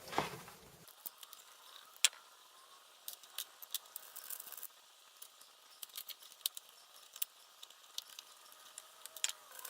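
Scattered light clicks and taps of hard plastic: 3D-printed utility knife parts being handled and tried together, the loudest click about two seconds in.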